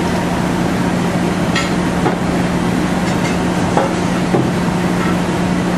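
Steady droning hum of kitchen machinery, holding one constant low tone, with a few faint light clicks of metal tongs against a plate.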